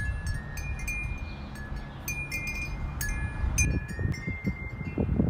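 Wind chimes ringing in a breeze, several clear tones struck at irregular moments. Under them is a low wind rumble on the microphone that turns gusty in the last couple of seconds.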